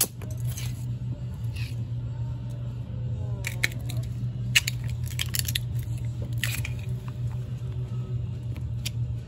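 Platform heels stepping on a concrete floor, with sharp cracks and crunches of small plastic model trucks breaking underfoot, a quick run of them in the middle; a steady low hum underneath.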